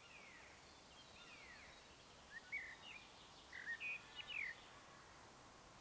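Small songbirds calling, with short chirps and downward-sliding whistles over a faint steady hiss of woodland air. A quick run of several louder calls comes in the middle.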